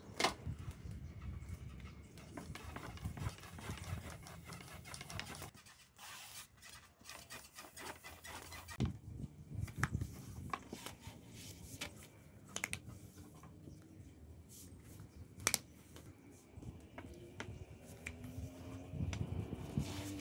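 Long thin rolling pin (oklava) working dough on a wooden board: rubbing with scattered light knocks and clicks.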